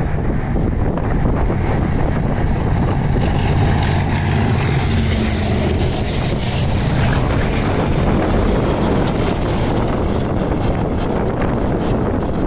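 Class 97/3 diesel locomotive, a rebuilt Class 37 with an English Electric V12 engine, passing close with a railhead treatment train of tank wagons. Its engine drones steadily, and a high hiss of wheels and wagons swells about halfway through as the train goes by, with wind on the microphone.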